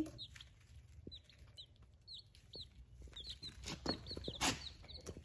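Day-old chicks peeping: a steady run of short, high chirps that fall in pitch, from several chicks at once. A brief rustle comes about four seconds in.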